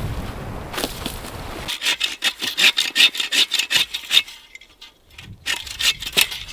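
Hand saw cutting through wood, in quick back-and-forth strokes at about four a second, pausing briefly and then taking a few more strokes near the end. Under the first second and a half there is a low rumble.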